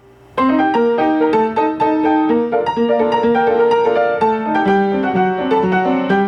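Piano music with quick, overlapping struck notes, starting about a third of a second in.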